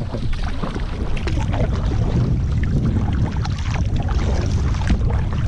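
Kayak paddling: the paddle blades splash and drip in the water, and water laps against the hull. Wind rumbles steadily on the microphone.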